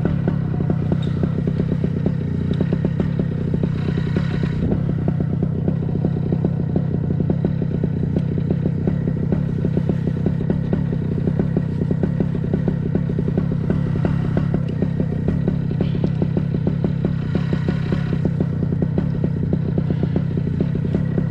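Vittorazi Atom 80 single-cylinder two-stroke paramotor engine running steadily at constant throttle.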